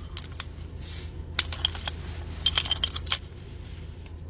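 Metal bottle opener clinking on a glass soda bottle and prying off its crown cap, with a short hiss about a second in and several sharp metallic clicks.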